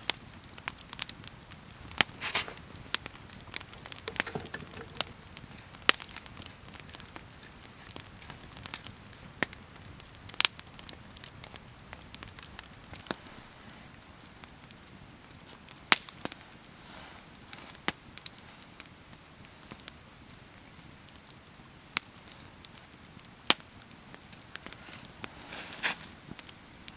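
Wood campfire crackling, with sharp irregular pops and snaps over a low steady hiss.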